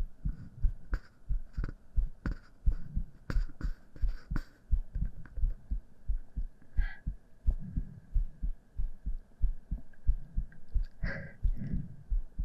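A person's heartbeat, close-miked: a steady, fairly quick lub-dub of low thumps. Light clicks and rustles sit over it in the first few seconds and again near the end.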